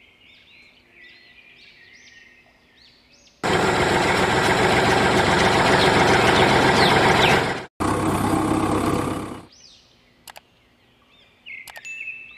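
Birds chirping faintly, then a loud, steady, engine-like rushing noise starts suddenly about three seconds in, cuts out for an instant, and fades away about six seconds later. A few sharp clicks and more chirps come near the end.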